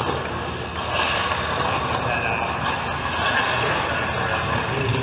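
Hockey skate blades scraping and carving on rink ice as a skater moves around the net, the scraping building about a second in. A steady low hum runs underneath.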